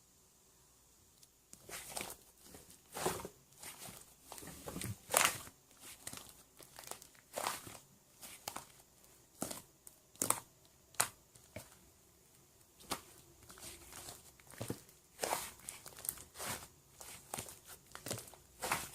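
Irregular crinkling and rustling handling noises, starting about a second and a half in and going on in uneven strokes.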